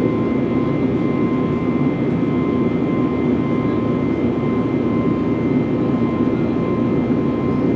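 Steady engine and airflow noise inside the cabin of an Airbus A321 jet airliner in flight: a dense, even rush with a faint steady whine on top.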